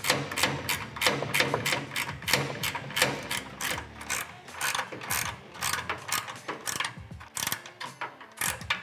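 Ratchet wrench clicking in a steady run of short strokes, about four clicks a second, as bolts are tightened down.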